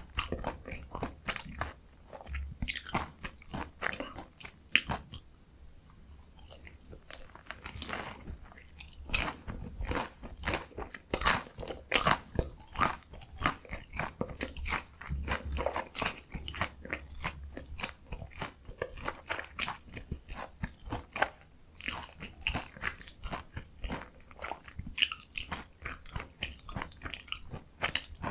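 Close-miked biting and chewing of a potato-crusted mozzarella corn dog: dense, irregular crunching of the fried crust, going on steadily.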